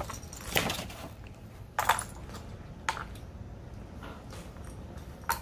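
Small plastic building bricks clicking as they are handled, a few separate sharp clicks over a low steady background hum.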